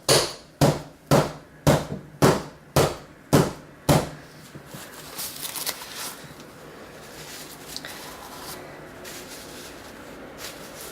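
Eight sharp thumps, about two a second, as a Pringles-can mould full of hot-process soap batter is knocked down on a hard surface to settle the batter and drive out air. Softer handling rustle follows.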